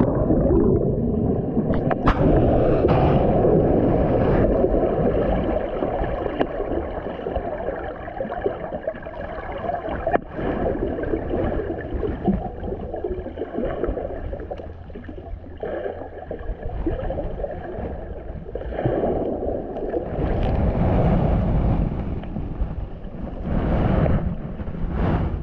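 Water sloshing and gurgling with rushing, wind-like noise on the microphone while under way on the river, swelling a few times near the end.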